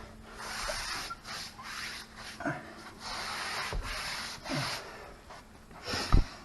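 A wet rag wiped in repeated strokes over a freshly sanded red oak stair tread, rubbing back and forth to reveal where old finish remains. There is a short thump near the end.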